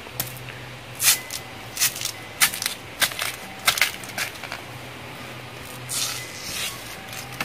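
A fibrous ginger-family plant stalk being cut and split with a knife and its strips pulled apart: a quick series of sharp cracks and crunches between about one and four seconds in, then a few softer tearing ones near the end. A faint steady low hum runs underneath.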